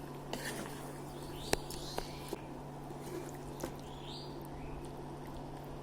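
Spatula knocking and scraping in a pan as chicken pieces are stirred and browned in a thick spice paste: a few sharp clicks and a couple of short, high chirp-like squeaks over a steady low hum.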